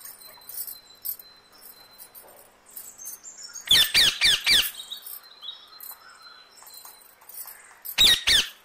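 A bird calling: a quick run of about five loud, squeaky calls around four seconds in, and three more near the end, over faint high chirping.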